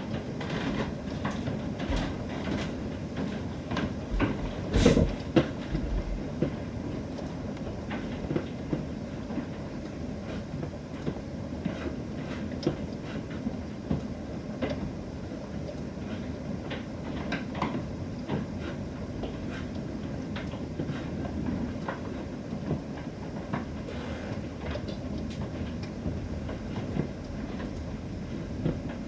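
Thunderstorm: a steady rush of heavy rain and wind with irregular sharp clicks and knocks of hail striking, the loudest a sharp knock about five seconds in.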